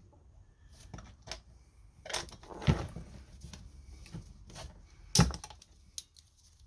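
Irregular clicks, creaks and knocks of mole grips (locking pliers) clamped on a seized casing stud of an e-bike mid-drive motor, being worked back and forth as the stud starts to turn; a sharper knock about five seconds in.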